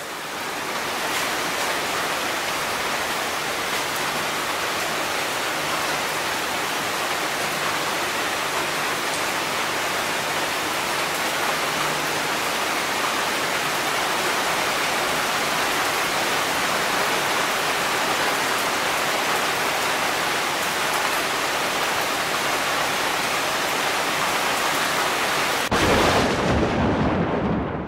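Rain falling steadily on a wet paved yard and garden foliage, an even hiss. About two seconds before the end, a sudden loud clap of thunder breaks in and goes on as a low rumble while the rain hiss fades out.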